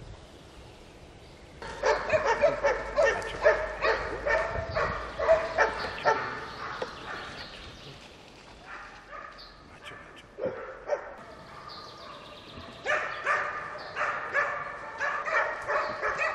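Hunting dogs baying and yelping in pursuit, giving tongue as they drive a wild boar through the undergrowth. The baying breaks out about two seconds in, thins out in the middle and swells again near the end.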